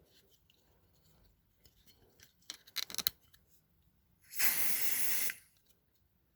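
A few small clicks and rattles of handling, then a single steady hiss of about a second from an aerosol can of Smoke Sabre smoke-detector test spray, sprayed at a smoke alarm to set it off.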